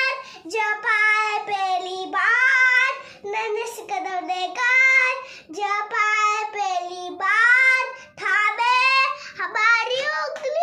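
A young boy singing solo, without accompaniment, in phrases of held, gliding notes separated by short breaths.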